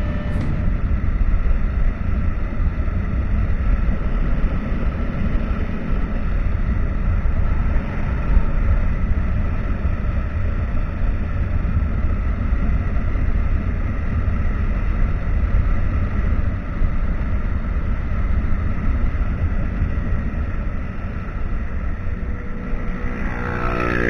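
Motorcycle being ridden: steady engine rumble mixed with heavy wind rush on the microphone.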